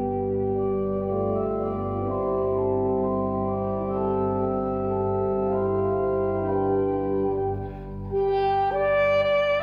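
Saxophone and pipe organ playing a slow piece together, sustained organ chords held under the saxophone's melody. About eight seconds in the music briefly drops away, then a new, brighter phrase begins.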